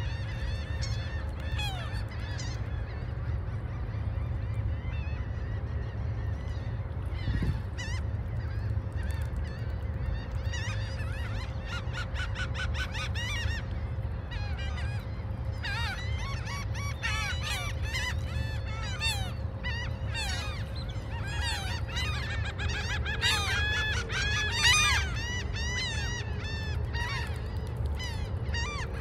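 A flock of gulls calling: many short, repeated, overlapping squawking calls, busiest in the second half, over a steady low rumble of gentle waves and wind.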